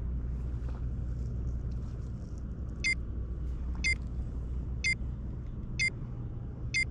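Five short electronic countdown beeps, about one a second, over a steady low rumble.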